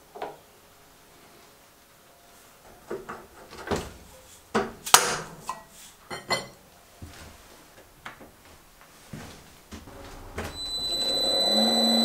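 Metal knocks and clanks as aluminum bar stock is set in a Kurt milling vise and the vise handle is worked, the loudest about five seconds in. Near the end the Bridgeport milling machine's spindle motor starts and runs up to a steady hum with a high whine.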